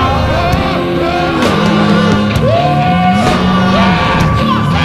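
Loud live rock music: a band with electric guitar plays while a singer sings and shouts over it.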